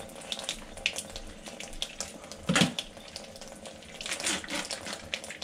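Kitchen tap running into a stainless steel sink as raw beef liver is rinsed, with scattered small splashes and handling noises and one louder knock or splash about two and a half seconds in.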